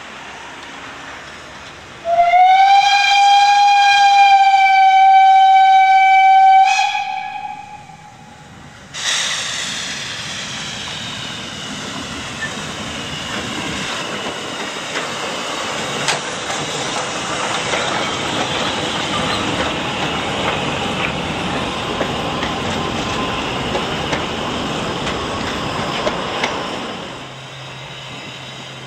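Narrow-gauge steam locomotive's whistle sounding one long, steady blast about two seconds in, trailing off in a short weaker note. From about nine seconds the locomotive works past close by, with steam hissing and clattering over the rails, and the sound drops away a couple of seconds before the end.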